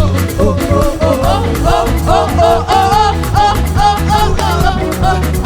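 Gospel praise-and-worship band playing an upbeat song, with singing over a steady dance beat.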